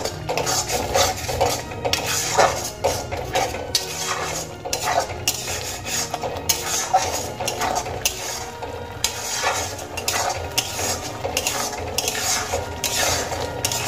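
A metal spatula scrapes and stirs a thick spice paste against the side of a metal kadai in repeated irregular strokes, as the masala is being fried (koshano).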